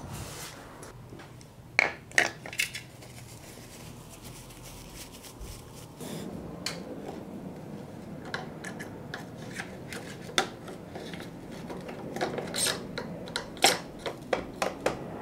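Small metal parts clicking and tapping as a machined aluminium rocker link and its spacers are handled and fitted against a mountain-bike frame. The clicks are scattered, with a few early on and a quicker cluster near the end.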